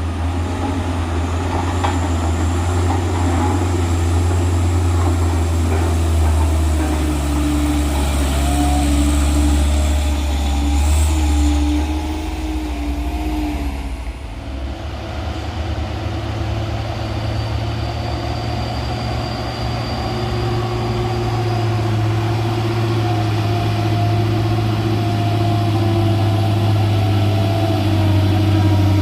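Heavy diesel truck engines running with a deep, steady drone, which dips briefly about halfway through and then picks up again.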